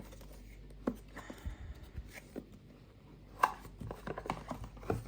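Hands handling Blu-ray box set packaging: scattered taps, clicks and rustles, with a sharper knock a little past the middle and a quick run of small clicks near the end.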